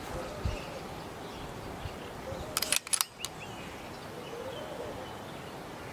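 A suppressed .22 PCP air rifle firing: a quick cluster of sharp cracks and clicks about halfway through, over steady outdoor background noise.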